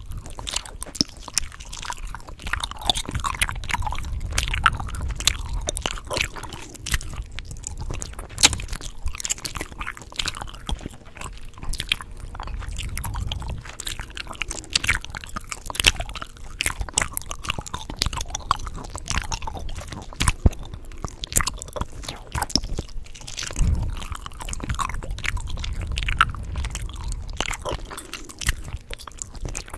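Close-miked chewing gum: a dense, irregular stream of sharp mouth clicks and smacks from chewing.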